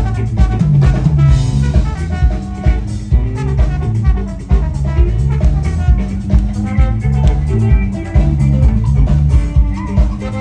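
Live funk-soul band playing an instrumental passage with no vocals: a driving drum-kit groove over a heavy bass line, with guitar on top.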